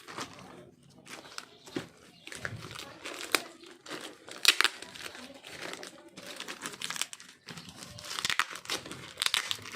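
Parcel packaging being handled and opened by hand: irregular crinkling and rustling with sharp crackles and some tearing, loudest about four and a half seconds in.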